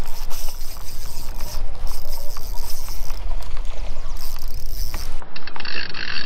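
Wind buffeting the microphone as a heavy low rumble, with rapid clicking and ticking from a fishing reel being worked.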